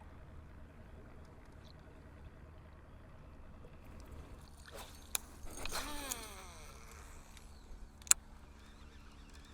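Quiet ambience on a fishing boat on a calm lake: a steady low hum, a brief whirring sound that falls in pitch about five to six seconds in, and a single sharp click about eight seconds in.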